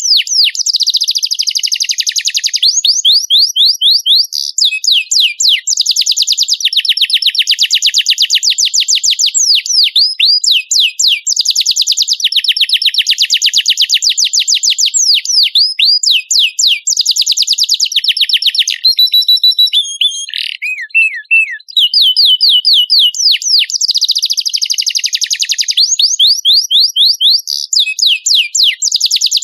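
Domestic canary singing a long, high-pitched song of fast trills and rolling phrases that change pitch every second or two, with a short break about twenty seconds in.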